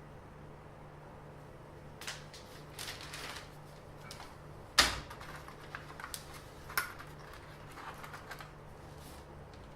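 Scattered clicks, taps and rustles of small hard objects being handled, the loudest a sharp knock about five seconds in and another click nearly two seconds later, over a faint steady hum.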